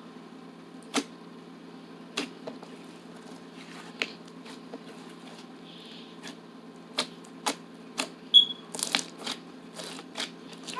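Sharp clicks at irregular intervals, a few seconds apart at first and coming closer together in the second half, over a steady low hum.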